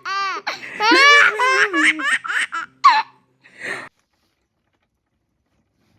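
Baby laughing in a run of quick, high-pitched bursts, ending in a short breathy sound; it stops about four seconds in.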